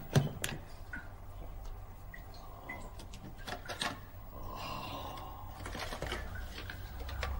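Handling noises: a few sharp clicks and taps of small toiletry tubes near the start, then the soft rustle of a cardboard carton being opened and tipped over a basin.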